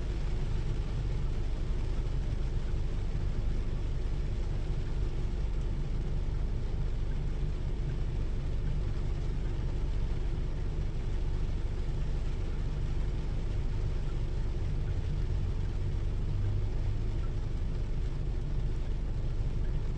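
Steady rainfall, an even wash of noise with a strong, constant low rumble underneath.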